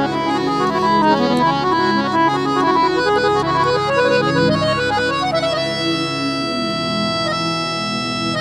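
Harmonium playing a devotional melody in quick runs of notes, then settling into a held, sustained chord a little past halfway.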